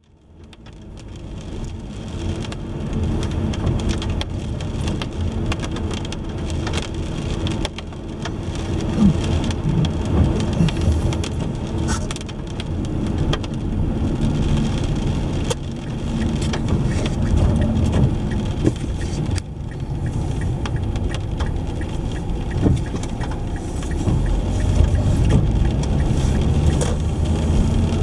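A car driving in the rain: steady low road and engine rumble with rain noise and scattered short ticks, fading in from silence at the start.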